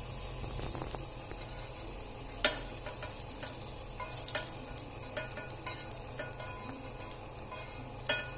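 Large-cut onions sizzling in oil in a hot pan while a spatula scrapes and clinks against the metal as they are scooped out into a bowl. Several sharp clinks sit over the steady sizzle, the loudest about two and a half seconds in.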